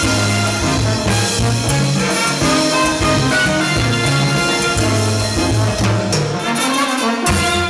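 Live salsa band playing, with a brass section over bass and Latin percussion.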